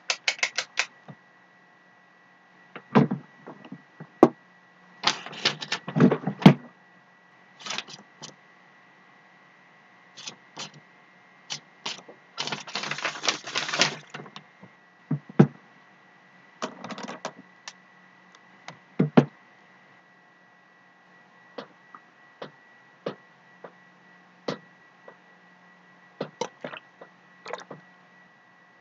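Irregular knocks, clicks and scraping of objects being handled, with a longer burst of rustling about halfway through, over a faint steady electrical hum.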